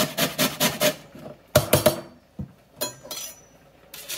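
Lemon rind rasped on a stainless steel box grater in quick even strokes, about seven a second, for the first second. After that come several sharp knocks and taps of the metal grater on a wooden cutting board, knocking the lemon zest loose.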